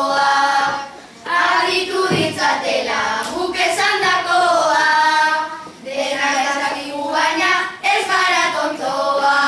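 Children singing a Basque verse (bertso) together in long held phrases, with short breaks for breath between them.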